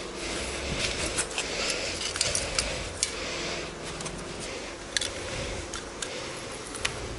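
Jumper cables being uncoiled and handled, their metal clamps clinking and rattling with a few sharp clicks.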